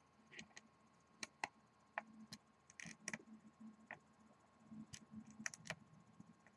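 Faint, irregular clicks and light taps of a small metal screwdriver and fingers on a rebuildable dripping atomizer's deck as the coil post screws are checked for tightness, to steady a fluctuating resistance reading.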